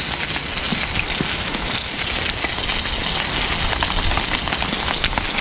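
Rain pattering steadily on a tarp overhead, a dense patter of small drops.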